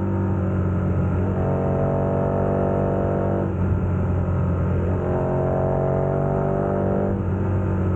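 KTM 1290 Super Adventure's V-twin engine through a Wings aftermarket exhaust, pulling under acceleration with its pitch rising, and two breaks in the note, about three and a half seconds in and again near the end, that fit gear changes.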